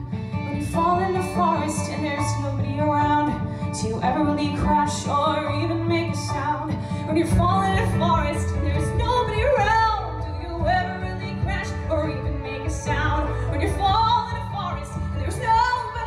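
A woman singing a show tune into a microphone over instrumental accompaniment, her voice rising and falling through sung phrases.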